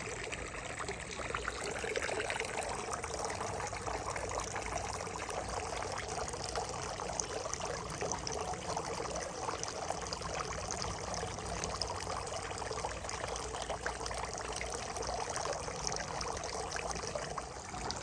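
Water pouring and trickling steadily, a continuous splashing stream.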